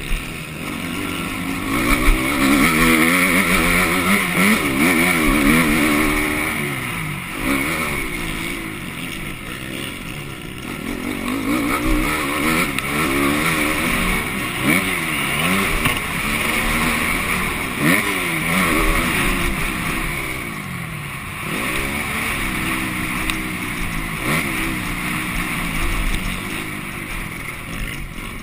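MX2 motocross bike engine heard from a camera mounted on the bike, revving up and down repeatedly as the rider accelerates, shifts and backs off around the track.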